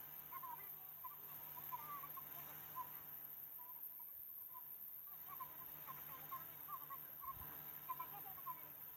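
Faint bird chirping: short calls repeating irregularly a few times a second, over a steady low hum.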